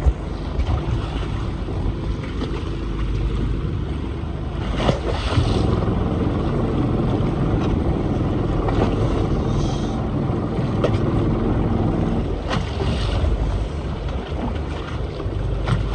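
Fishing boat's engine running steadily, mixed with wind on the microphone and sea water washing along the hull; the water noise swells louder about five seconds in and again around twelve seconds.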